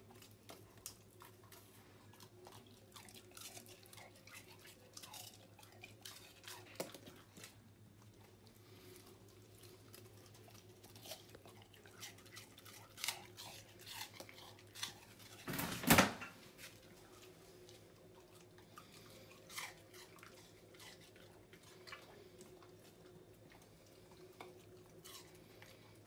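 Norwegian Buhund chewing and crunching a small piece of food, picked up from and dropped onto a tile floor: a run of short, irregular crunching clicks, with one louder thump about two-thirds of the way through. A faint steady hum lies underneath.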